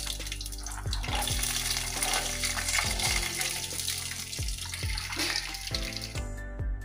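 Peanuts sizzling as they fry in hot sesame oil in a stainless-steel kadai, a steady loud hiss that cuts off about six seconds in. Soft background music plays underneath.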